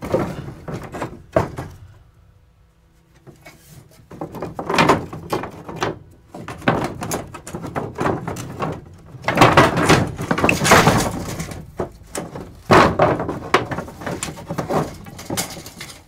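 Lengths of wood stock being shuffled on an overhead shelf: irregular knocks, thunks and sliding scrapes as pieces are pulled out and pushed back. There is a short lull a couple of seconds in, and the clatter is heaviest a little past the middle.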